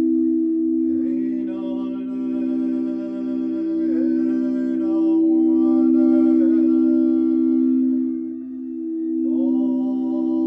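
Steady drone of singing-bowl-like tones with a voice chanting long held notes over it. Each note starts with a short upward slide, four times in all.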